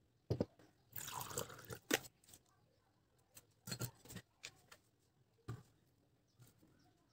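Art supplies being set down on a wooden tabletop: a handful of separate knocks and clunks, with a second or so of rattling and scraping about a second in, as a mug full of pencils and brushes is put in place.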